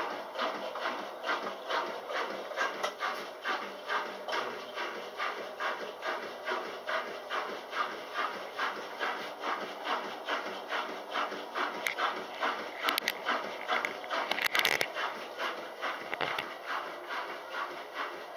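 Kelvinator K605 washing machine agitating through its wash, a steady rhythmic swishing and chugging of about three strokes a second. A few sharp clicks and a louder knock come about two thirds of the way in.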